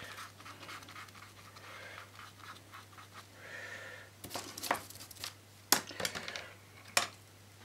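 Paintbrush scratching over paper in quick short strokes, followed by several sharp clicks and knocks between about four and seven seconds in, over a steady low hum.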